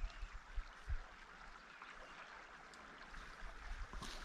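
Faint, steady rush of a river flowing, with a few brief low thumps in the first second.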